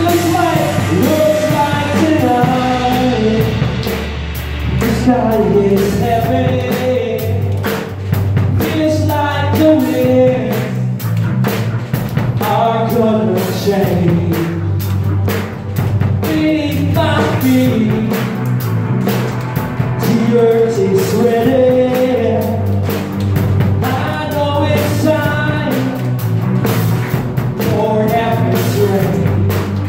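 Live worship band playing a song: a drum kit played steadily, its hits prominent, under sung melody and keyboard.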